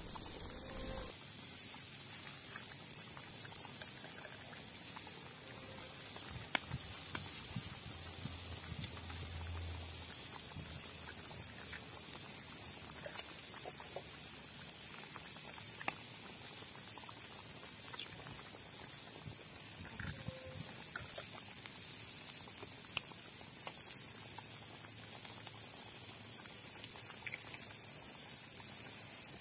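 Onion, potato and egg soup simmering in a wide steel pan over a wood fire: a steady bubbling hiss with scattered small pops and clicks. A loud high hiss cuts off about a second in.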